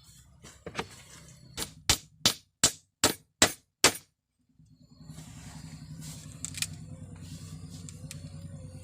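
A rapid series of about seven sharp strikes of a tool on wood or bamboo, a little under half a second apart, cutting off suddenly. After a short silence, a steady low rushing noise with scattered light ticks follows.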